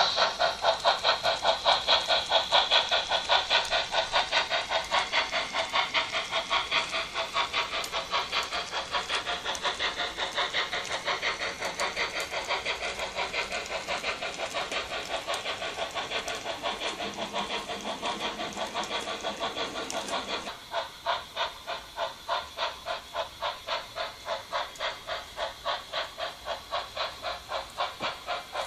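Märklin H0 model steam locomotive running, its sound unit playing a steady rhythm of hissing steam chuffs, about three a second, from a small onboard speaker. The sound drops suddenly in level about two-thirds of the way through, and the chuffing carries on.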